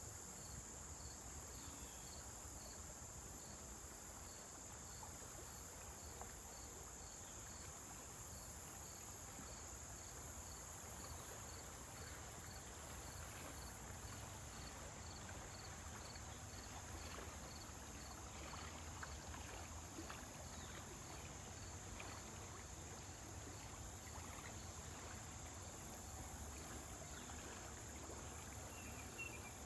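Insects chirping outdoors: a steady high-pitched insect drone with a regular cricket-like chirp about twice a second, over a low steady rumble.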